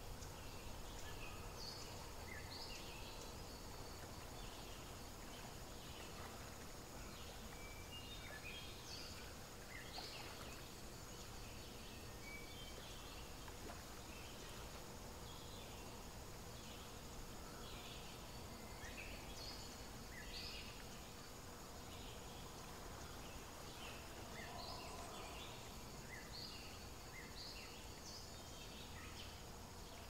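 Faint outdoor natural ambience: a steady low hiss with many short, high chirps scattered throughout.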